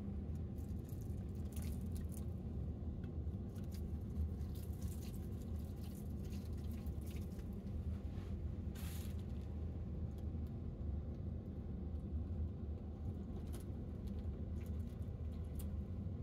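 Water poured from a plastic bottle onto potting soil in a plastic seedling tub, pattering and soaking in with faint crackles. A steady low hum runs underneath.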